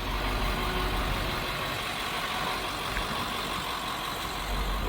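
Strong storm wind gusting and buffeting the microphone: a steady roar with a deep rumble that swells at the start and again near the end.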